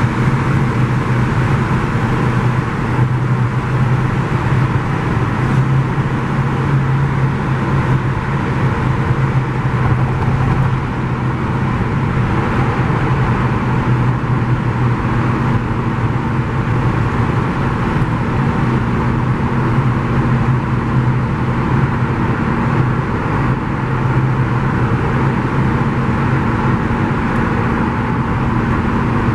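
Steady road noise heard inside the cabin of a car driving through a highway tunnel: an even rumble of tyres and engine with a constant low hum, unchanging throughout.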